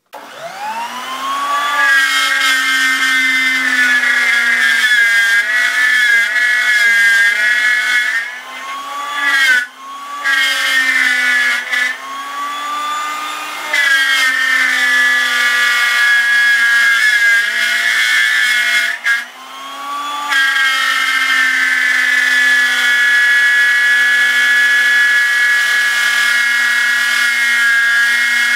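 Performax plunge router mounted in a router table, starting up with a rising whine and then cutting a circle in 3/4-inch MDF with a 1/4-inch solid carbide downcut spiral bit. The motor's pitch sags and recovers several times as the bit takes load, with a couple of brief dips, and runs steady near the end.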